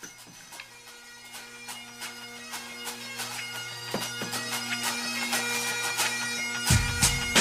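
Bagpipe music fading in: a steady drone under a melody, getting louder throughout, with heavy low beats coming in near the end.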